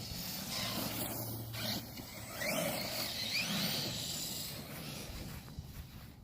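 Redcat Earthquake 8E electric RC monster truck driving in grass, its motor whine sweeping up and down in pitch several times as it speeds up and slows.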